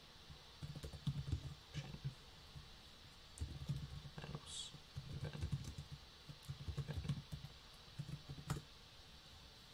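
Typing on a computer keyboard in several short bursts of keystrokes with pauses between them.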